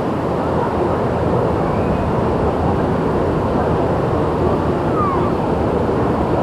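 Steady rushing of the lazy river's pumped current, the water flowing along the channel around the inner tubes.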